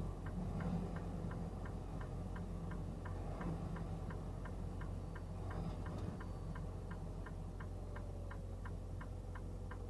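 Car's hazard-light flasher clicking at an even rate of about three ticks a second, over a low steady hum from the stopped car.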